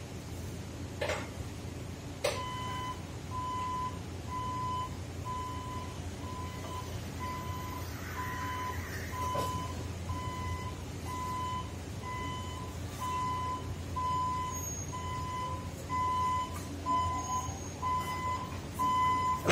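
Hyundai electric reach truck's travel alarm beeping about once a second as the truck drives, starting about two seconds in, over a steady low hum, with a few sharp clicks.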